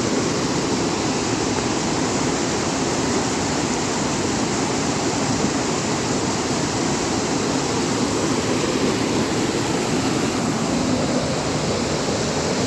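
Small waterfall on a cold mountain stream, water cascading and rushing steadily over rocks.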